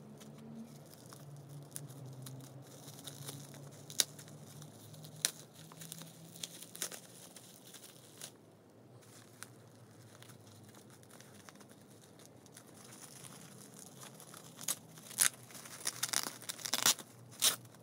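Bubble wrap crinkling and packing tape tearing as the wrap is pulled off a book by hand, with scattered sharp crackles. Near the end comes a quick run of loud snips and snaps as scissors cut through the bubble wrap.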